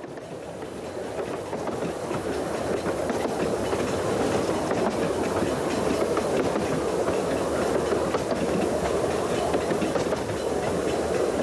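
Narrow-gauge railway carriage running along the track: its wheels make a steady rumble with a light clickety-clack over the rails, growing louder over the first couple of seconds and then holding steady.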